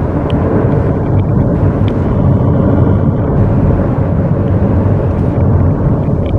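Avalanche of snow and rock coming down a mountainside: a loud, steady, deep rumble that doesn't let up.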